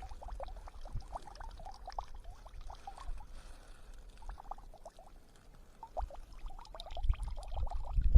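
Excess water being poured off a batch of soaked, mashed bread groundbait, trickling and dripping in many quick small drops. Low wind noise on the microphone builds near the end.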